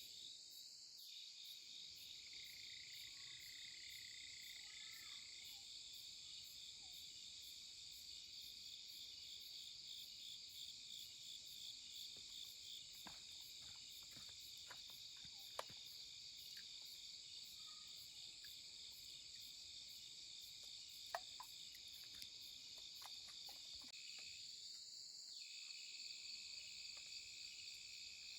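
Faint, steady chorus of insects chirring high and continuously with a fast pulse, with a few light clicks.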